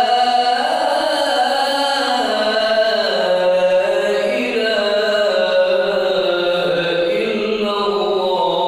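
A man's voice calling the adhan, the Islamic call to prayer, into a handheld microphone. He sings one long unbroken phrase whose pitch glides and turns up and down.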